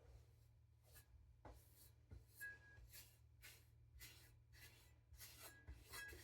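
Faint, rhythmic scraping of a knife edge drawn across a coarse whetstone, about two strokes a second, growing a little louder near the end.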